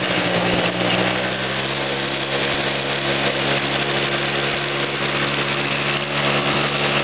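ATV (quad bike) engine running at a steady pitch while riding, under an even hiss.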